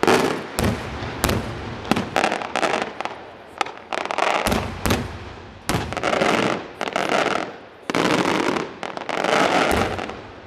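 Traditional Maltese aerial fireworks bursting overhead. A rapid series of sharp bangs comes first, then three longer loud bursts of about a second each in the second half.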